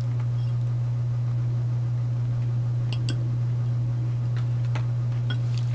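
A steady low hum, with a few faint clicks of a knife against a plate as food is cut on it.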